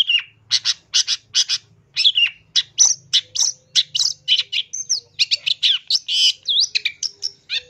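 Long-tailed shrike singing: a fast, high-pitched run of short, sharp chattering notes mixed with brief whistled swoops.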